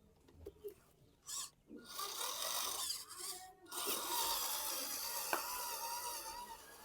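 A rasping, scraping noise in two stretches: about a second long, then after a short gap about three seconds long, with a faint wavering whine under the second.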